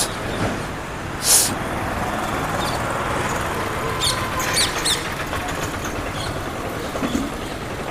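Steady road traffic noise beside a busy road, with two brief hisses in the first second and a half and a few short high chirps around the middle.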